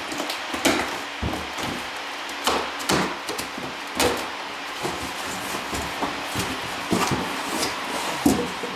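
Packing tape being pulled off a large cardboard shipping box by hand and the cardboard flaps folded open: irregular rips, crackles and knocks of cardboard.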